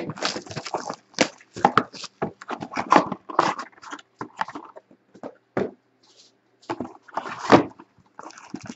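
Cardboard trading-card boxes being handled: irregular scraping, rubbing and knocking of cardboard against cardboard and the table as a box is drawn out of its case and set down, with the loudest knock about seven and a half seconds in.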